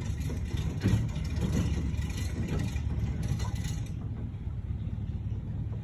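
A small boat's motor running steadily as the boat moves through floodwater.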